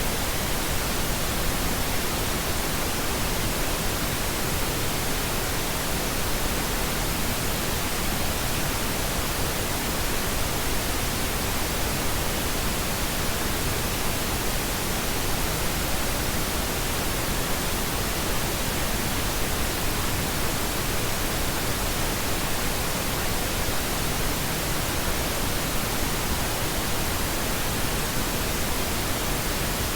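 Steady pink noise: an even, unchanging hiss with no other sound.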